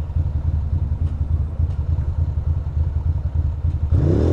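2006 Ducati Monster 620's air-cooled L-twin idling with a steady low pulse. A little before the end, a louder engine sound swells up briefly.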